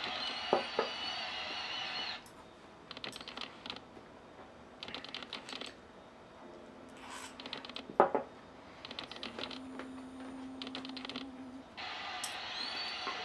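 Chopsticks clicking rapidly against a ceramic rice bowl in short runs as rice is shoveled into the mouth, with one sharper knock on the bowl about eight seconds in.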